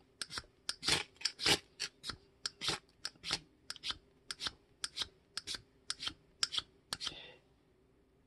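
Steel ferro rod striker scraped again and again down a hard ferrocerium rod, about three quick scrapes a second, stopping about seven seconds in. The rod is too hard to shave well and gives only an occasional spark.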